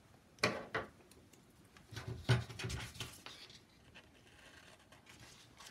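A sheet of paper being handled on a desk: a couple of light taps in the first second, then rustling as the paper is picked up and moved about two seconds in, fading to faint scratchy noise.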